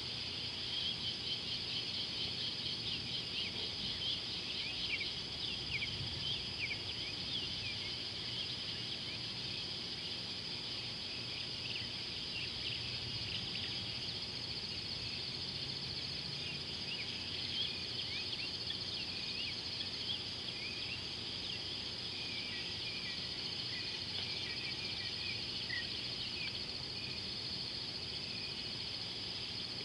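Evening insect chorus: a steady high-pitched trill, with many short chirping calls over it, thickest in the first several seconds and again near the end.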